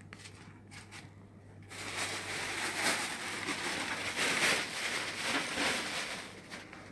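Close rustling and rubbing noise right at the phone's microphone, starting about two seconds in and fading near the end, over a low steady hum.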